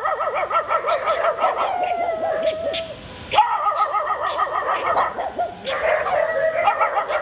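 Several dogs barking and yapping at once in rapid, overlapping yelps, with one drawn-out howl about two seconds in. The chorus breaks off briefly near three seconds and again near five seconds.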